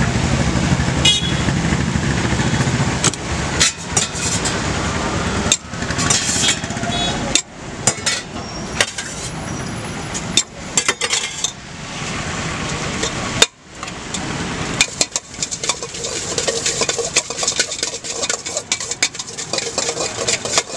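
Steady street traffic with running engines, overlaid by many short clinks and knocks of a steel spoon and knife against steel bowls and pots.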